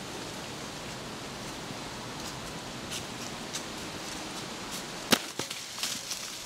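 Steady outdoor rustling hiss. About five seconds in there is one sharp click, then a few lighter clicks and taps.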